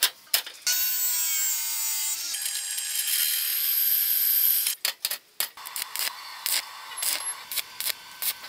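A few metal clinks, then from about a second in a drill press runs and bores through a steel flat bar with a steady whine, stopping at about the fifth second. After that comes the irregular crackle of an arc welder tacking rebar onto the steel bar.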